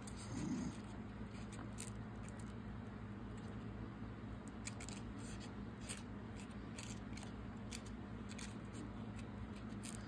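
Faint scattered ticks and rustles of cardstock petals being handled and pressed into place with a small tool, over a steady low hum.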